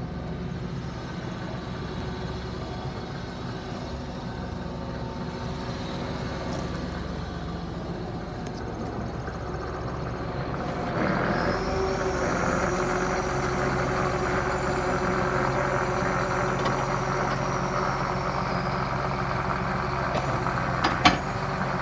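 Tractor engine idling steadily, growing louder about halfway through, with a faint high whine over it for a while and a sharp click near the end.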